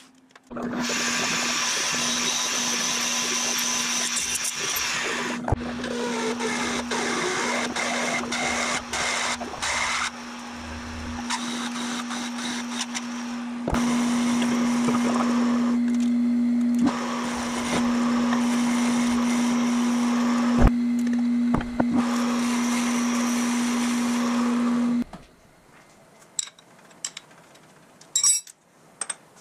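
Vertical milling machine running and cutting metal: a steady motor hum under the hiss of the cutter in the work. It stops about 25 seconds in, followed by a few light metallic clicks.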